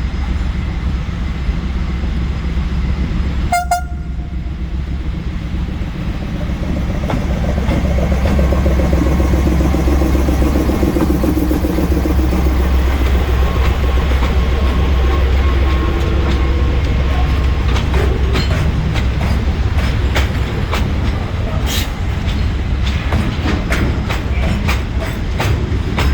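Diesel locomotive 26102 running as it shunts: a steady low engine drone that builds up about seven seconds in. A brief high horn pip sounds near the start. From about two-thirds of the way through comes a string of sharp clicks and clanks from the wheels and rail joints as it moves.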